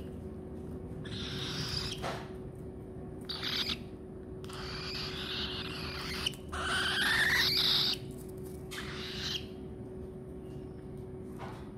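Cockatiels giving harsh, raspy screeching calls in about five bursts, the longest and loudest around the middle, over a steady low hum.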